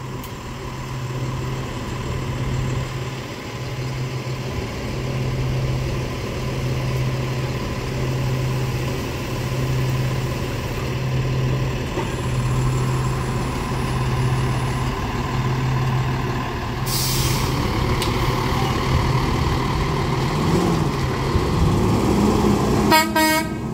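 Freightliner roll-off truck's diesel engine running with a steady low hum that pulses about once a second, then a short hiss of air brakes releasing about two-thirds of the way through. Near the end the engine note rises as the truck pulls away.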